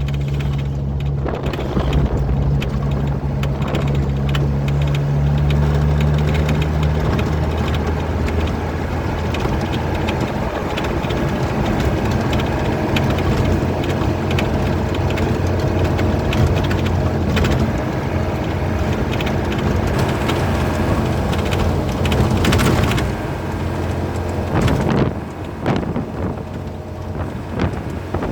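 Truck engine running on the road with rattling throughout; the engine's steady low hum fades out about seven seconds in, leaving a rattly rumble of road noise.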